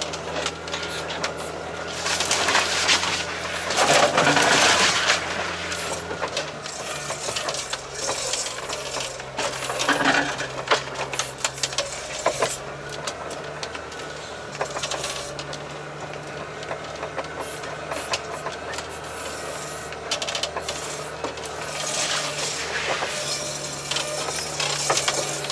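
All-terrain vehicle's engine running steadily as it crawls through deep snow. Loud scraping and brushing bursts come a couple of seconds in, around ten seconds, and again near the end, as overgrown brush and branches rub along the vehicle's body.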